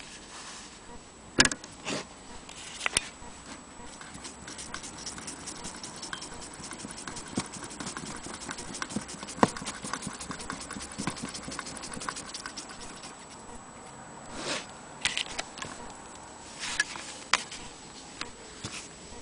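Clicks and knocks from an antique Willcox & Gibbs sewing machine being handled, with a stretch of fast, light ticking in the middle.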